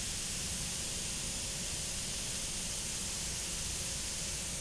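Steady hiss of blowing air inside a CNC machining centre while a tool is measured on a Renishaw laser tool setter, starting and cutting off abruptly.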